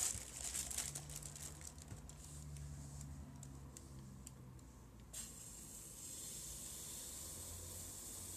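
Thin plastic bag crinkling and rustling as it is pulled over a glass plate of pancakes, the crackles dying away after a second or two. A faint steady hiss sets in about five seconds in.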